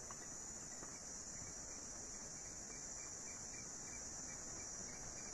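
Faint, steady background noise with a constant high-pitched whine on top, unchanging throughout.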